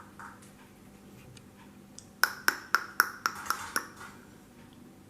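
A quick run of about eight sharp, ringing metallic pings, coming a little faster toward the end, as a small piece of metal is struck repeatedly.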